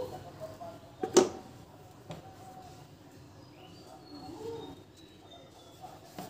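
A few knocks and clicks of angle grinder parts being handled during disassembly. The loudest comes about a second in and a lighter one about two seconds in, with faint bird-like calls in the background.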